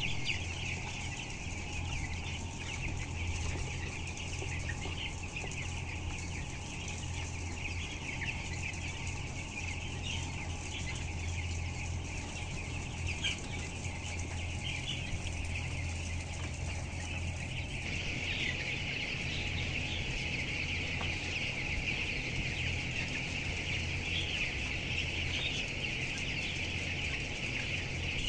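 A flock of broiler chickens calling and clucking all at once, a dense continuous chatter of many short high calls, over a steady low hum. The calling grows a little stronger about two-thirds of the way through.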